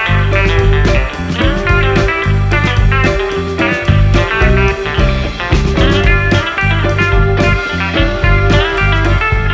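Background music: blues-rock with guitar over a steady beat.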